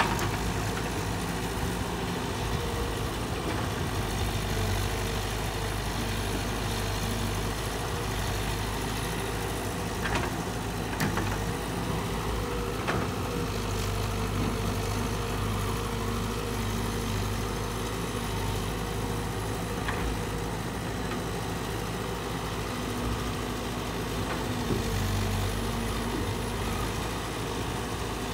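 Caterpillar 312 hydraulic excavator's diesel engine running steadily while it works, with a few faint knocks scattered through.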